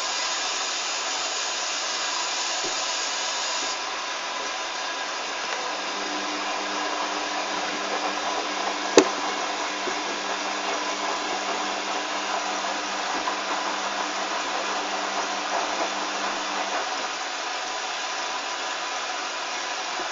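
Hoover Dynamic washing machine running with a steady whooshing noise that eases slightly about four seconds in, with a single sharp click about nine seconds in.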